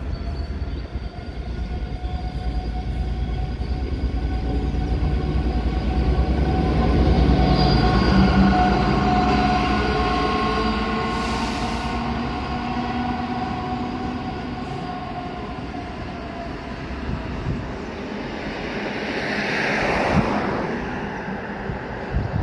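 Diesel locomotive of an engineering train running past. Its engine note and low rumble grow louder to a peak about eight seconds in, then slowly fade. Near the end there is a brief rushing noise that falls in pitch.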